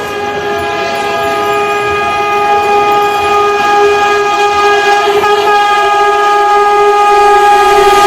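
Indian Railways WAP-7 electric locomotive's air horn sounding one long, steady blast, growing louder as the train approaches.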